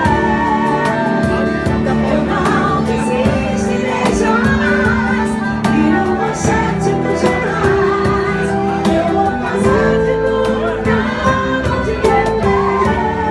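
Live band music: a woman sings into a microphone over bass guitar and drums keeping a steady beat.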